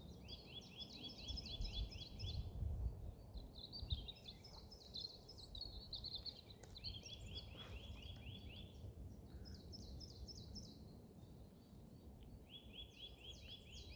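Great tits calling: three runs of quick, evenly repeated high notes, with other scattered chirps between them, faint over low forest ambience. These are the birds' warning calls at a person's presence, as the observer takes them.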